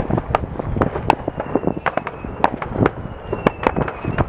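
Fireworks going off across a wide area: a dense, irregular string of bangs and pops, several a second, some sharp and some dull, with no break.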